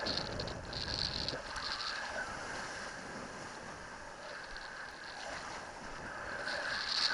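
Wind and water rushing past a helmet camera's microphone as a kiteboard rides over choppy water: a steady noisy rush with a high hiss that fades through the middle and comes back near the end.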